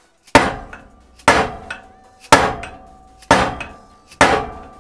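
Five blows of a dead-blow hammer, about one a second, on an old socket used as a driver, seating a new wheel bearing into a dirt bike's rear wheel hub. Each blow leaves the metal ringing for a moment.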